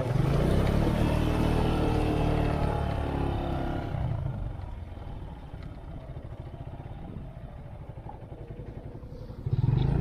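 Motorcycle engine pulling hard through a shallow, rocky river crossing, with water splashing off the wheels. After about four seconds the splashing stops and the engine runs at lower revs with an even pulsing on the dirt track. A short louder burst comes near the end.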